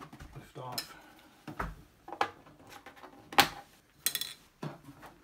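Plastic case of a Macintosh Plus being pried and worked apart by hand: a string of sharp clicks and knocks from the tight-fitting case halves, the loudest a little past the middle.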